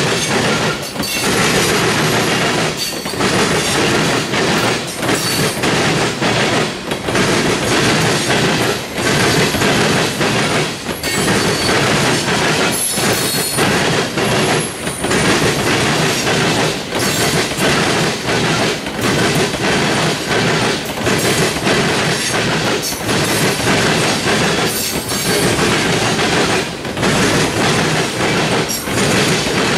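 Loaded trash gondolas of a CSX freight train rolling past at speed: a loud, continuous rumble and clatter of steel wheels on rail, dipping in a regular rhythm about every two seconds as car after car goes by, with a faint high wheel squeal now and then.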